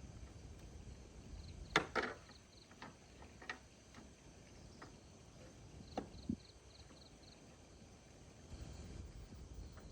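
A few sharp knocks and taps, two close together about two seconds in and another pair about six seconds in, over faint, high insect chirping in short runs.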